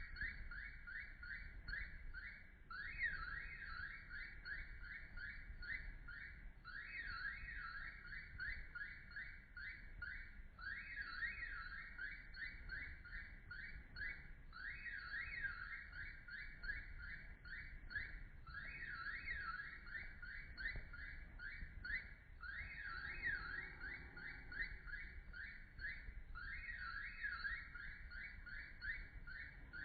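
A looping electronic alarm-like warble: runs of rapid high pulses that sweep up and down in pitch. Each run lasts about three seconds, with a short break, and repeats every four seconds.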